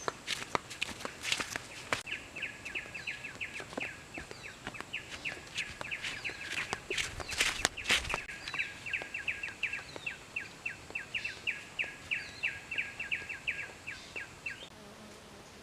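A bird calling a long, even run of short, quick downward notes, about four a second, which stops near the end. Sharp clicks and rustles come through it, loudest about seven to eight seconds in.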